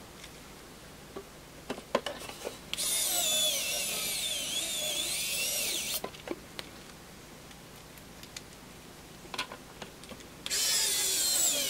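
Kaiweets ES20 electric precision screwdriver's small motor whining as it drives screws into a plastic case, its pitch wavering with the load: one run of about three seconds, a few small clicks of handling, then a second run starting near the end.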